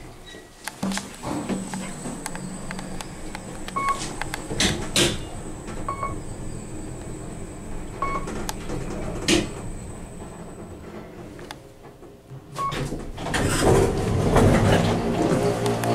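Traction elevator car riding between floors: short electronic beeps from the car's fixtures about every two seconds, a few clunks and clicks, and a faint high steady whine. Near the end a louder sound with steady low tones takes over.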